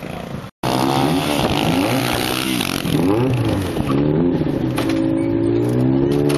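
Stunt motorcycle engine revving, its pitch rising and falling several times, then held at steady revs for the last second or so. The sound cuts out briefly near the start.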